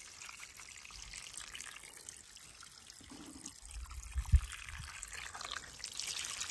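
Faint trickling water, with one brief low thump about four seconds in.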